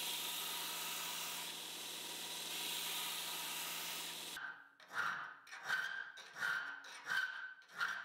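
Belt grinder running with a steel spanner-wrench blank pressed against the belt, a steady hiss that stops abruptly about halfway through. Then a hand file strokes across the steel part held in a vise: five rasping strokes, about one every three-quarters of a second.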